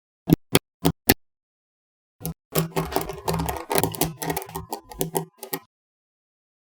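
Small magnetic balls snapping together: four sharp clicks in the first second or so, then a dense run of clicking and clattering lasting about three seconds.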